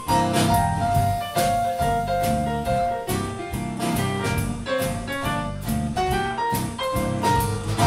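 Live jazz-blues band playing an instrumental break: Roland VK-7 organ, acoustic guitar and electric bass, with a lead line of held notes over a steady beat.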